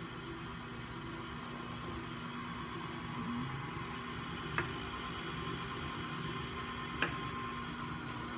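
Steady hum and hiss of room tone, with two short sharp clicks about two and a half seconds apart.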